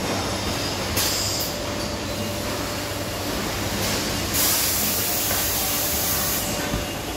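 Steady low rumble and hiss of background noise, with a short burst of louder high hiss about a second in and a longer one from about four to six and a half seconds.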